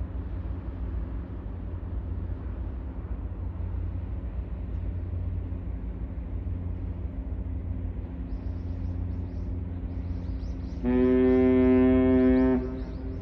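Ship's horn sounding one long, steady blast of nearly two seconds, about eleven seconds in, over a steady low rumble.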